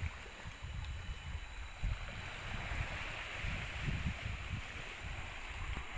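Outdoor ambience of gusty wind rumbling on the microphone over a steady hiss of moving water.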